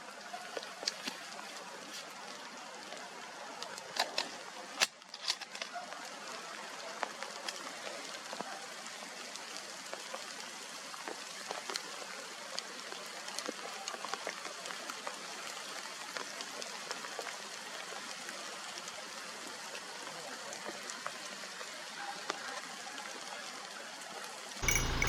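Steady outdoor noise that sounds like running water, with scattered sharp clicks and ticks throughout.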